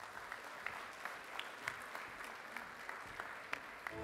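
Audience applauding: many hands clapping in a steady wash, with a few louder single claps standing out.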